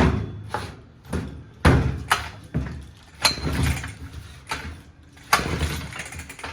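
Two-stroke McCulloch 1-41 chainsaw being pull-started over and over, about once a second. Its engine fires briefly on the pulls but won't keep running: it starts and dies, which the owner first took for flooding from a carburetor lifter set too high.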